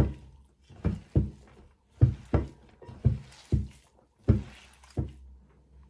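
Bare hands kneading and squeezing a wet raw meatball mixture of ground meat, grated potato and onion in a baking pan, making irregular squishing thuds about every half second.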